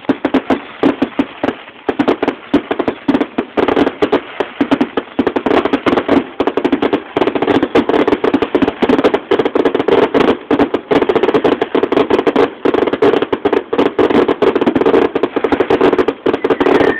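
Aerial fireworks bursting in rapid succession: a dense, unbroken run of bangs and crackles, many a second, with no pause.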